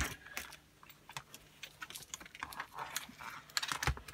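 Irregular clicks and taps from a heavily wired electronics board being turned over and set down: bundled wires, crimp terminals and the acrylic base knocking against each other and the bench. One sharp knock at the start and a quick flurry of clicks near the end.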